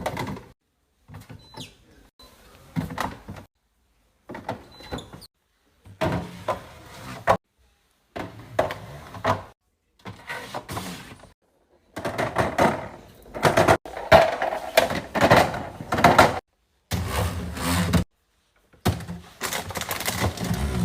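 Fridge restocking sounds: plastic containers, bins and drawers being slid, set down and knocked together, with a door-like clunk now and then. They come in short clattering bursts broken by sudden dead silences, and grow louder and busier about halfway through.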